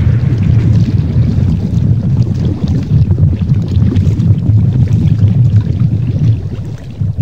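Radio-play sound effect of a churning sea: loud rushing water over a heavy low rumble, easing off near the end.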